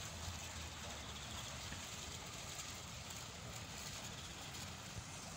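Steady splashing hiss of small fountain jets falling into a tiled water channel, over a low rumble.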